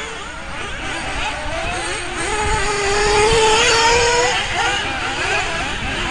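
Engines of several radio-controlled racing buggies running at speed, their pitch rising and falling as they accelerate and brake around the track. One buggy grows louder about three seconds in, its note climbing as it passes close, then fades.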